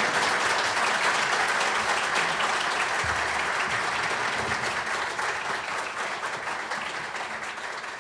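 Audience applause, a dense clatter of many hands clapping that slowly fades.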